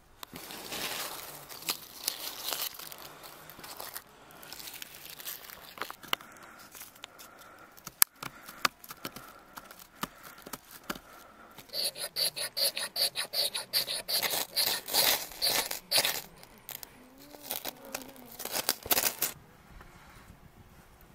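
Knife blade scraping and shaving birch bark and dry wood, making tinder for a campfire: scratchy scraping strokes, then a run of quick, loud strokes in the latter half.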